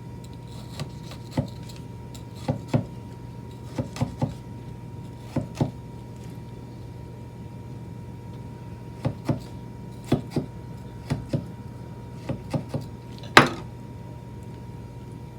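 Knife cutting into a vegetable on a cutting board: short, sharp knocks, mostly in quick pairs or threes with gaps between. The loudest and longest knock comes a couple of seconds before the end. A steady low hum runs underneath.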